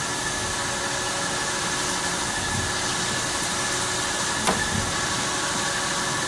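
Fadal VMC4020 vertical machining center running under power: a steady whir with a high, even tone through it, and a single short tick about four and a half seconds in.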